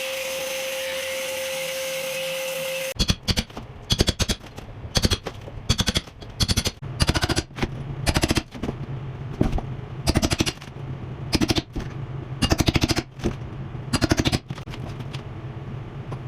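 A power tool whines steadily for about three seconds. Then a power hammer chisels plaster off the wall in many short, rapid bursts of hammering, each under a second.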